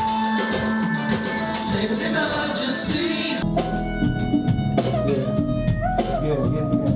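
Live band music with drum kit and guitar playing a steady groove. About halfway through, the texture changes and a singer's voice comes in over the band.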